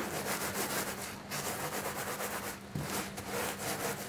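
Wooden rolling pin rolled back and forth over dry breadcrumbs in a plastic zip-top bag on a steel counter, crushing them finer: a gritty rubbing in repeated strokes.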